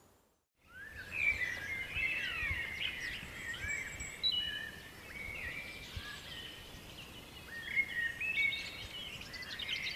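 Several songbirds singing and calling over one another: many short whistles and chirps, some sliding up or down in pitch, starting after a moment of silence under a second in.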